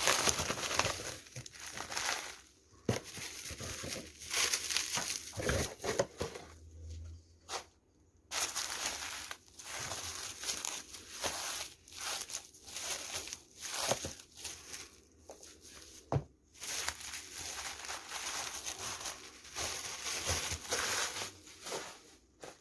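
Parcel packaging being unwrapped by hand: bursts of crinkling and tearing wrapping, stopping and starting with short pauses.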